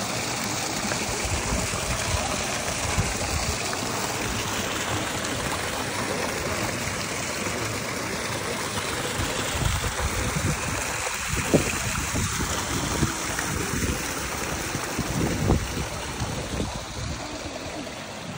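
Steady rush of flowing water in a garden's ponds and channels, with a few brief low thumps in the second half.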